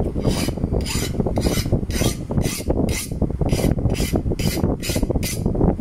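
A steel file drawn repeatedly across the edge of a hardened knife blade in a vise: about a dozen short, sharp scraping strokes, roughly two a second. This is a file test of the differentially hardened edge's hardness. A steady low rumble runs underneath.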